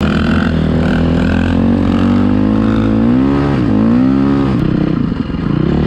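Dirt bike engine running and revving: its pitch holds steady, dips, then climbs again around three and a half seconds in, and the sound turns rougher a little after four and a half seconds.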